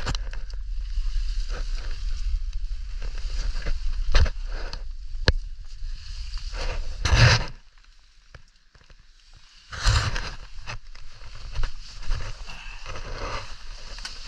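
Scraping, rustling and knocking of a caver crawling over rock, gravel and dry leaf litter, with clothing and gear rubbing against the rock. Two longer, louder scrapes come about halfway through, with a short lull of about two seconds between them.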